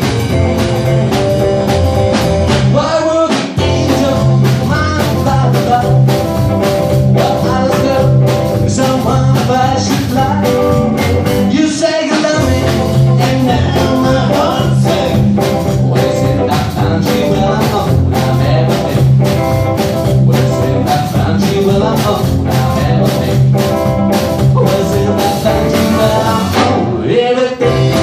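Rockabilly trio of guitar, double bass and drum kit playing an up-tempo number with a steady driving beat.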